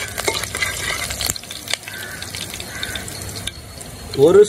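Coriander and fenugreek seeds sizzling in hot oil in an aluminium pan, stirred with a slotted steel spatula that clicks and scrapes on the metal in the first second and a half. A steadier, quieter sizzle follows.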